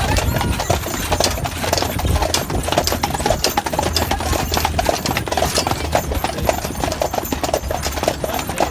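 Hooves of a pair of harnessed draft horses clip-clopping on an asphalt road as they pull a carriage: a rapid, irregular run of hoof strikes over a steady low rumble.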